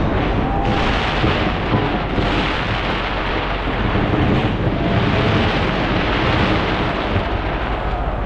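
Dense barrage of aerial fireworks bursting in rapid succession, the bangs and crackle running together into a continuous thunder-like rumble that swells a few times.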